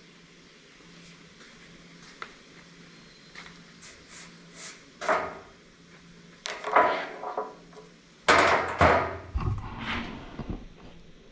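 Irregular knocks and clattering thuds of shop work on a steel truck bed panel, a few scattered ones then a loud cluster near the end.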